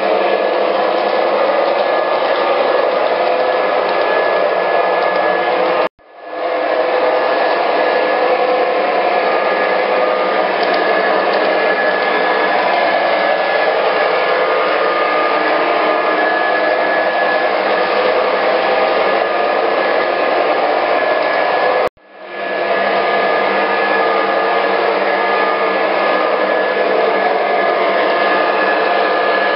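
MTH O-gauge GP-35 model diesel locomotives pulling double-stack container cars on three-rail track, giving a steady whirring rumble. The sound cuts out twice and fades quickly back in.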